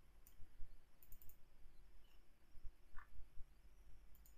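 Faint computer mouse clicks: one early, a quick run of three about a second in, and another near the end, over a low steady hum.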